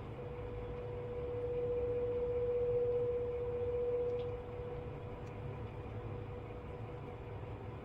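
A steady hum with one held tone over a low rumble; the tone swells louder for a few seconds about a second and a half in, then falls back.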